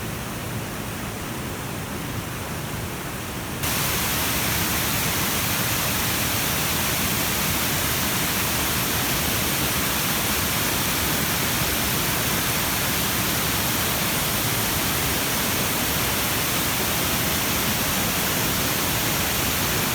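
Waterfall rushing, a steady even roar of falling water. About three and a half seconds in it jumps louder and brighter, as if heard from closer to the falls.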